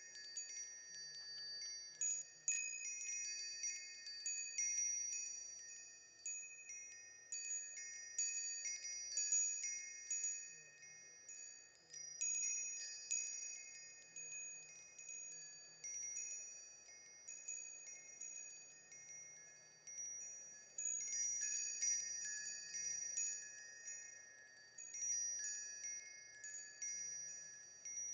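Wind chimes ringing in an irregular stream of overlapping high, clear tones, with fresh clusters of strikes every second or two, each tone dying away slowly.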